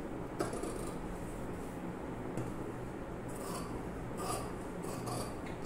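Large fabric shears snipping through two layers of cloth, the dress fabric and its lining, in a string of short crisp cuts: one about half a second in, then several in quick succession from about three seconds on.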